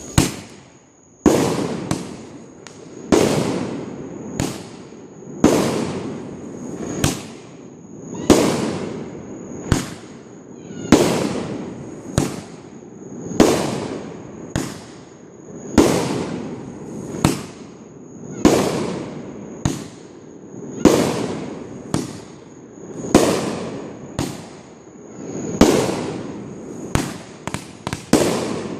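Fireworks going off in a steady series, about one bang a second, each followed by a long fading rumble. Near the end the bangs come quicker and smaller, like crackling pops.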